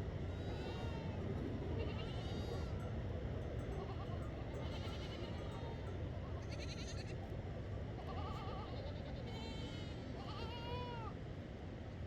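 A flock bleating, with calls of differing pitch from several animals coming about once a second or two, over a steady low rushing noise.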